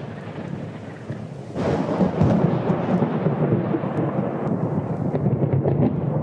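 Thunderstorm sound effect: a rolling thunder rumble dies down, then a new loud peal breaks about a second and a half in and keeps rumbling, with scattered crackles toward the end.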